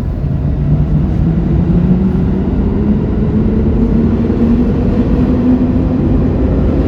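Subway train running loudly through the station: a heavy low rumble with a motor whine slowly rising in pitch as it accelerates.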